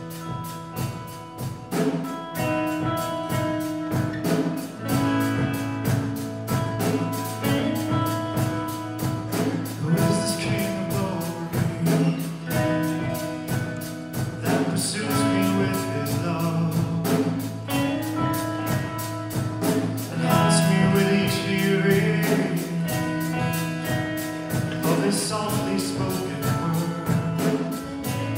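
Live worship band playing an upbeat gospel song with a man singing lead into a microphone, over guitar and drums. The music starts suddenly and keeps a steady beat, with a cymbal crash about every five seconds.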